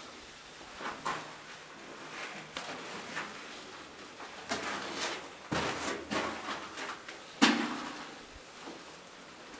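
Irregular scuffs, knocks and rustles from someone moving about on a rock floor while handling a camera, with one sharper thump about seven seconds in.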